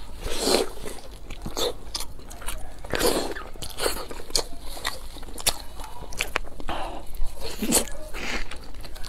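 Biting into and chewing a large pan-fried dumpling, its browned wrapper crunching in irregular bites and chews.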